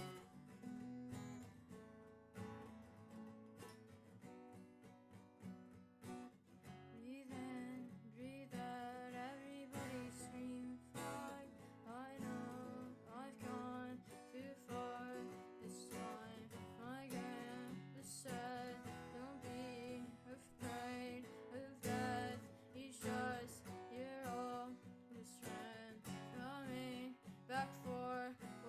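Acoustic guitar music, plucked and strummed, with a wavering melody line coming in about eight seconds in.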